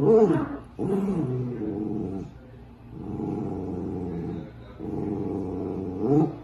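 Dachshunds growling in a tug-of-war over a rope toy: two short rising-and-falling growls at the start, the first the loudest, then long steady growls.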